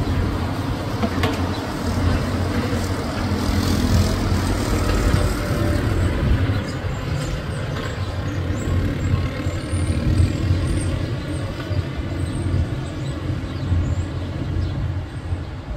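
Steady road traffic noise, with the low rumble of a large vehicle's engine running throughout.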